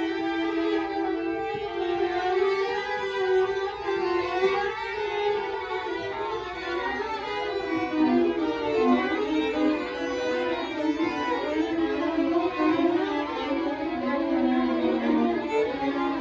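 String quartet of two violins, viola and cello playing a contemporary chamber piece: held bowed notes at first, then from about four seconds in, quicker overlapping figures passed between the instruments.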